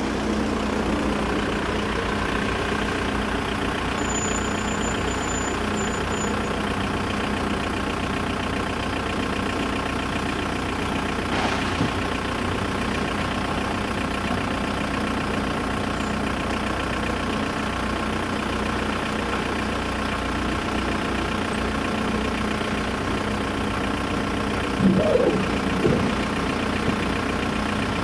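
Vehicle engine idling steadily, with a short louder clatter near the end.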